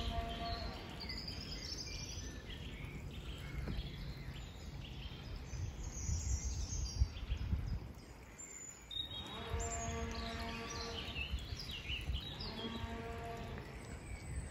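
Songbirds chirping in a garden over a steady low rumble on the microphone. A faint, steady multi-pitched hum comes in at the start and again from about nine seconds in.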